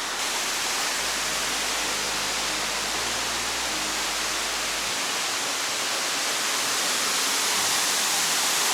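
Steady rush of La Fortuna waterfall's falling water, growing slightly louder toward the end.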